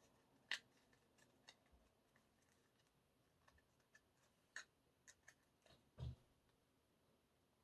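Near silence with a few faint clicks and taps, about half a dozen spread out, from photocards being handled on a table; the last, about six seconds in, comes with a soft thump.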